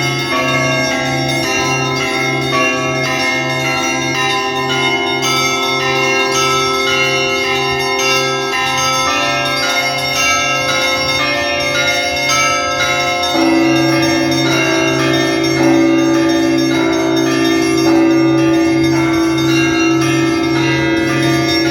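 Russian Orthodox church bells rung by hand in a festive peal for the liturgy: a low bell beats steadily about one and a half times a second under a mix of smaller bells. About thirteen seconds in, a stronger middle bell tone joins the peal.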